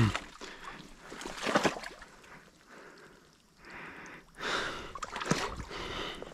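Steps wading through shallow water and mud: irregular sloshing and splashing with a few sharp knocks, quiet for a moment in the middle and busier again near the end.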